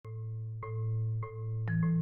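Intro music: a tune of struck, ringing mallet-percussion notes, about one every half second, over a held low bass note.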